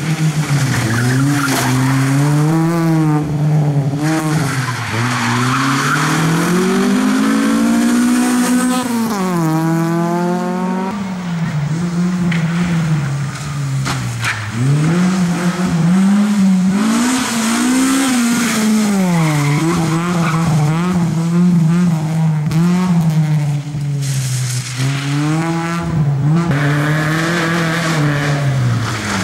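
Sixth-generation Honda Civic VTEC hatchback driven hard: its engine revs rise and fall over and over through gear changes and corners, with tyre squeal. The longest climb in revs comes about nine seconds in.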